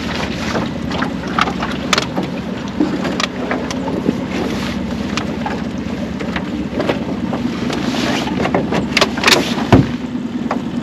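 Small fishing boat's outboard motor running steadily underway, with wind on the microphone and scattered taps and knocks; a heavier thump comes near the end.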